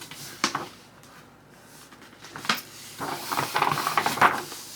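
Handling of the packaging during an unboxing: a couple of brief scrapes, then a stretch of rustling and crinkling about three seconds in.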